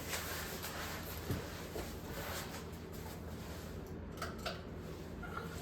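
Hunter 1912 Mission ceiling fan running on high speed: a steady rush of moving air over a low hum, with a few faint clicks.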